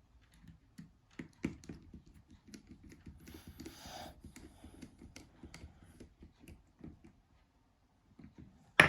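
Small irregular clicks and rattles of hand-handling a Nokia 3310's plastic chassis and a small screwdriver as the last screw is driven in, with a soft scraping stretch in the middle and a sharper knock right at the end.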